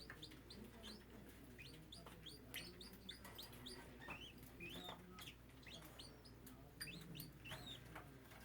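Several small grass parakeets (scarlet-chested, turquoisine and Bourke's) chirping faintly, a scatter of short, quick high chirps from many birds over a steady low hum.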